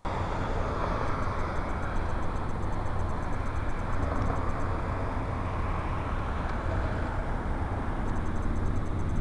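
Steady rumble and hiss of a vehicle on the move, even throughout.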